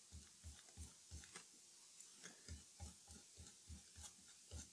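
Faint, rhythmic scrubbing of a fiberglass brush pen against painted nail heads on a speaker basket, about three short strokes a second, scraping the black paint off the nails.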